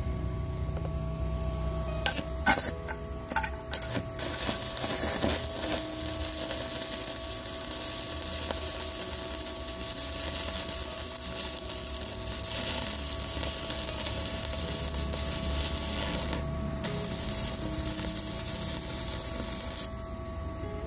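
Stick welding with a 2.5 mm E6013 rod on a Weweld ARC 220 inverter welder. A few sharp scratches and clicks come as the arc is struck about two seconds in, then a smooth, even arc crackle runs for about sixteen seconds before it stops near the end. A steady high whine sits underneath.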